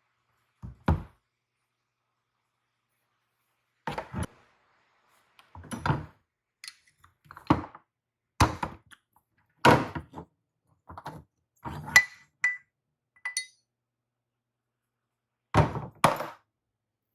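Metal parts and tools being handled and set down on a workbench: about a dozen separate knocks and clinks with dead silence between them, one giving a short metallic ring about twelve seconds in.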